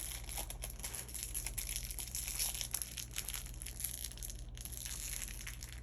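Plastic packaging of small mochi squishy toys crinkling and rustling in the hands, with a steady run of small crackles as the wrapper is pulled at to open it.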